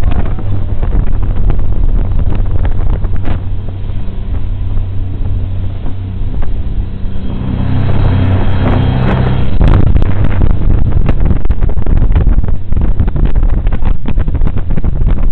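Jet boat running on a river: a steady engine note with rushing water and wind on the microphone. About halfway through the engine note strengthens, and the sound grows louder and stays loud.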